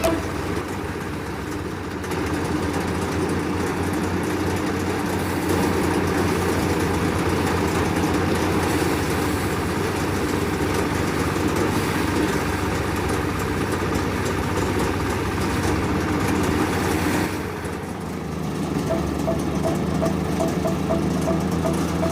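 An engine running steadily, with a brief drop in level a little after three-quarters of the way through before it picks up again.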